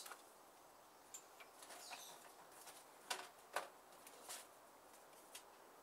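Faint, scattered clicks and crinkles of a clear plastic packaging case being handled and taken off, a few sharp ticks with quiet between them, the loudest two a little after three seconds in.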